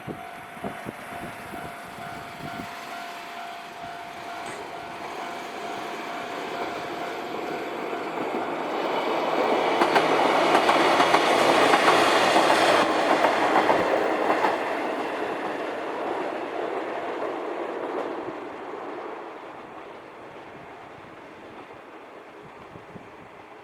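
Level-crossing warning bell ringing a steady tone while a Kishigawa Line electric train approaches. The train's wheels and motors build up, pass at their loudest about halfway through, and fade away over the last few seconds.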